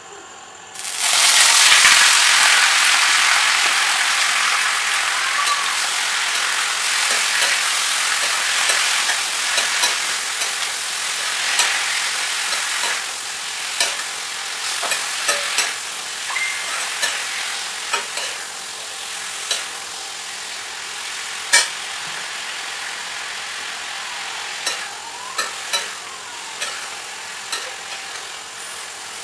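Cut green beans and other vegetables hitting hot oil in a metal kadai: a loud sizzle starts suddenly about a second in and slowly dies down. The clicks and scrapes of a spatula stirring them against the pan come through the later part.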